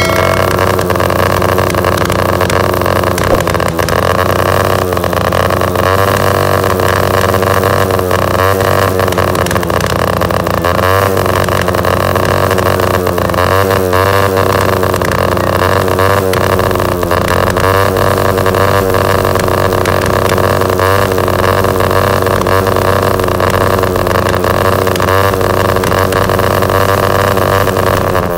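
Honda CG 125's single-cylinder four-stroke engine running through an aftermarket HKS exhaust, holding a steady idle with small rises and dips in pitch every second or two.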